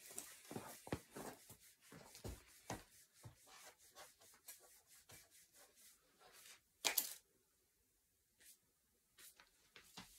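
Rustling and rubbing as a climber handles gear over foam crash pads: a run of short, soft scrapes with one louder, brief one about seven seconds in, then a moment of near quiet.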